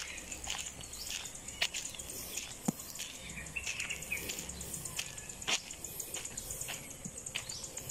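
Rural outdoor ambience: a steady high insect buzz with birds chirping, broken by scattered sharp taps and clicks at uneven intervals.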